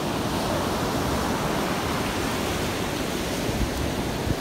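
Ocean surf breaking and washing up a sandy beach: a steady, even rush of noise.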